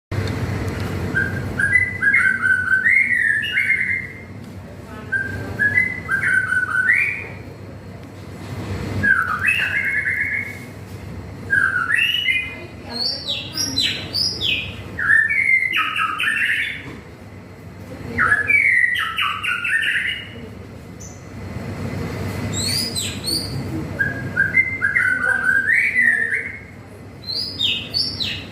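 A murai songbird singing: short, varied whistled phrases repeated every two to three seconds, about ten in all, over a low steady background noise.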